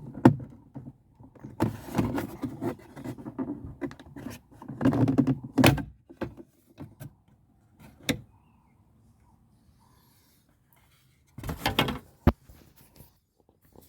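A car door trim cover being pried and pulled loose by hand: three spells of rubbing and scraping, with a few sharp clicks as its clips let go.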